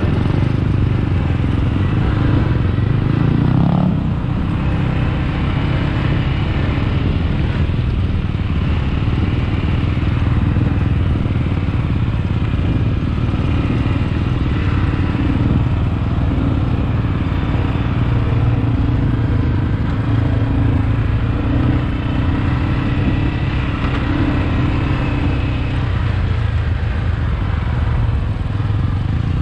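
ATV engine running steadily on the move, its note climbing briefly about three seconds in.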